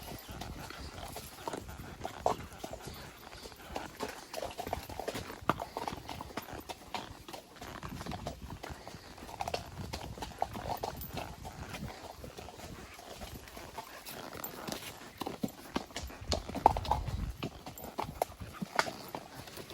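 Hoofbeats of a spotted saddle horse, a long run of quick, uneven clip-clop strikes.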